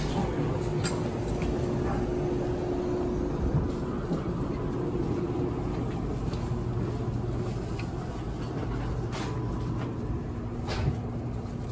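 Steady low rumble and hum inside a Meitetsu 1000 series Panorama Super railcar, with a faint held tone that fades out about halfway and another that comes in near the end. A few light clicks and knocks are heard.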